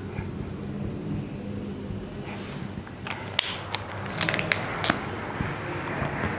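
Marker pen writing on a whiteboard: scratchy strokes, with a cluster of sharp clicks and short scrapes about three to five seconds in, over a steady low hum.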